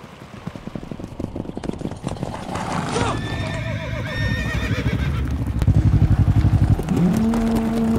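Horse hooves clip-clopping in a quickening rhythm, then a horse whinnies about three seconds in, a wavering high call lasting about two seconds. A fast run of low thuds follows, and a steady low hum sets in near the end.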